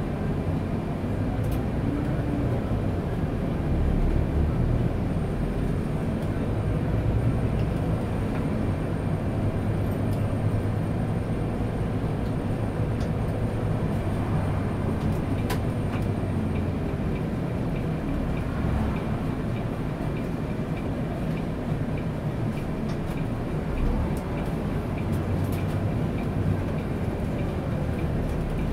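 Volvo 8900 city bus on a B8RLE chassis driving along, its diesel engine and road noise heard from inside the cabin as a steady, even din.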